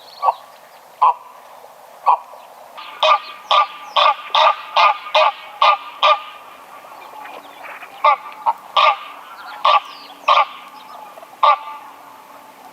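Greylag goose honking in a series of short honks: a few spaced calls, a quicker run of about three a second a few seconds in, then spaced honks again.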